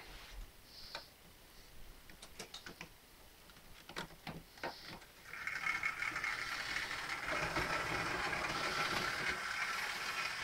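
Model train running on the layout's track: a steady mechanical whirr with a light rattle that sets in about five seconds in. A few faint clicks come before it.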